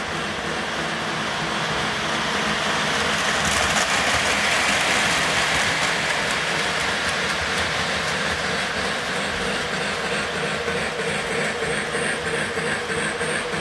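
Lionel O-gauge model steam locomotive and freight cars running along the track close by: a steady rumble and clatter of wheels on rail, loudest about four to six seconds in as the locomotive passes.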